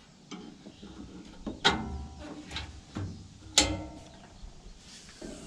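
Metal clanks and rattles, two loud ones with a ringing tail about two seconds apart among lighter clicks: the front guard of a round baler being unlatched and lifted.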